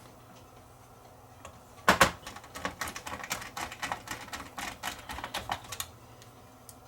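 A sharp knock about two seconds in, then about four seconds of irregular small clicks and taps: parts and tools being handled as a CD player is put back together.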